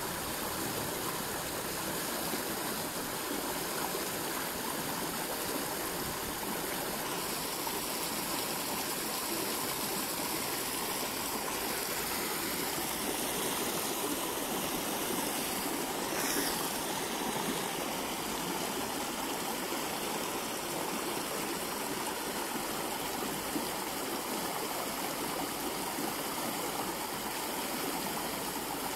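Steady rushing of a muddy stream flowing fast over shallows, with one brief soft swish about halfway through.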